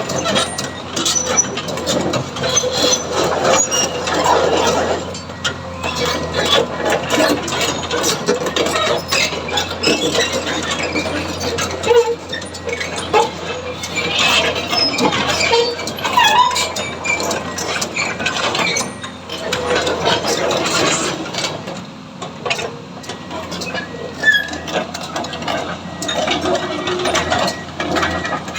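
Komatsu PC200 excavator running: a steady low diesel hum under irregular metallic clanking and rattling.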